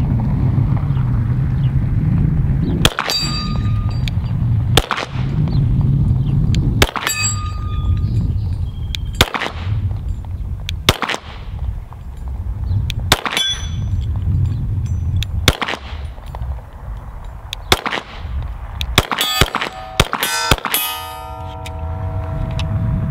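Glock 34 9mm pistol firing at steel plates: about eight shots roughly two seconds apart, then a quick string of four or five near the end. Several hits set the steel ringing, and the plates ring on after the last string. Wind rumbles on the microphone underneath.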